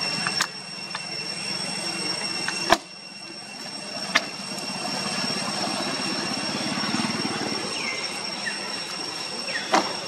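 Steady drone of a distant engine that swells a little in the middle. Several sharp plastic clicks and knocks come through it as a long-tailed macaque handles a plastic water bottle and sets it down, the last one near the end.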